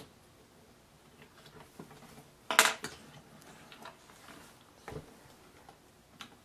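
Small scattered plastic clicks and scrapes as a crayon is worked in the wrapper-stripping tool of a Crayola Crayon Maker, with one louder, short clatter about two and a half seconds in.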